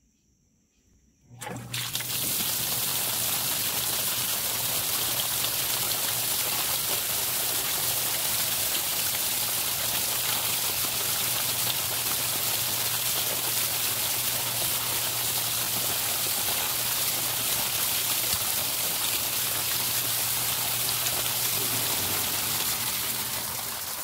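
Zoeller M98 half-horsepower submersible sump pump switching on about a second and a half in, with a steady low motor hum under the rush of water gushing out of an inch-and-a-half PVC discharge pipe. Near the end the hum stops and the outflow dies away as the 32-gallon basin is emptied.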